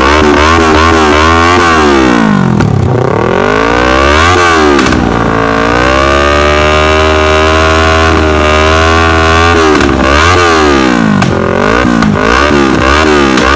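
Yamaha R3 parallel-twin exhaust through an aftermarket carbon slip-on muffler, blipped in quick repeated throttle stabs, then revved up and held at high revs for about four seconds before dropping back, and blipped rapidly again near the end.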